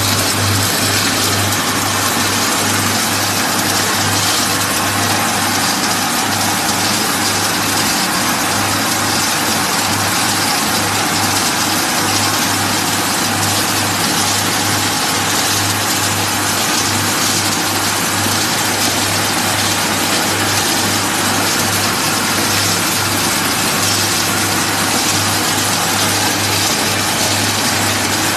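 Small animal-feed processing line running: the electric-motor-driven feed mixer, screw conveyor and pellet mill give a steady low hum under a constant rushing machine noise.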